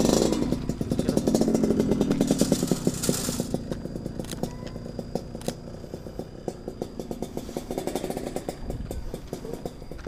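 A motor vehicle's engine running close by, loudest for the first three seconds or so and then fading away steadily as it moves off.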